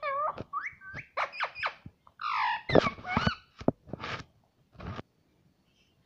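Indian ringneck parakeet calling in a quick run of short, pitch-gliding squeaks and chatter, with a few sharp clicks, then going quiet about five seconds in.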